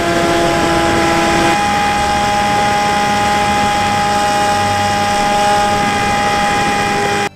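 Electric motor and pusher propeller of a Bixler 3 RC plane in flight, picked up by its onboard camera: a steady motor whine over rushing wind. The pitch steps up about a second and a half in as the throttle changes.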